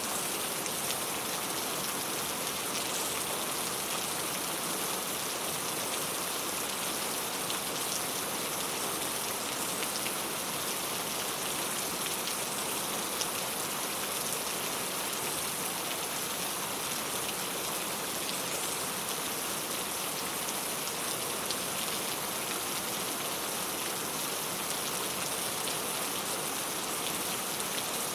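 Steady rain falling on a clay-tile roof: an even hiss of rain with scattered single drops ticking through it.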